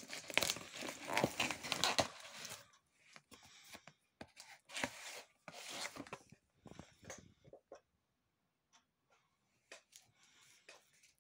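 Packaging being torn and crinkled by hand while a parcel is unpacked: dense tearing and crinkling for the first two and a half seconds, shorter bursts of rustling around four to seven seconds in, then a few light rustles and clicks.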